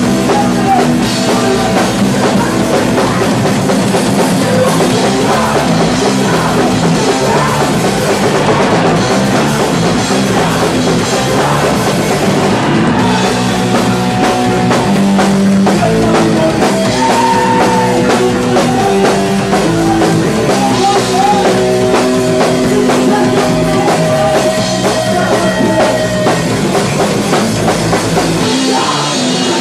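Live punk rock band playing loud: drum kit and electric guitar, with a vocalist singing into a handheld microphone.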